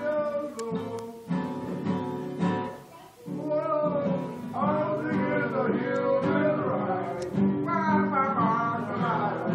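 Acoustic guitar strumming with voices singing a song, dipping briefly about three seconds in.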